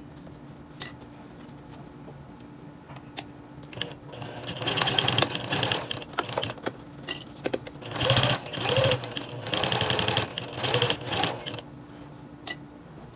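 Electric sewing machine stitching a 1/4 inch seam through layered fabric with zipper tape sandwiched between. It starts about four seconds in and runs in several short bursts of rapid stitching with pauses between, and a few small clicks come before the first run.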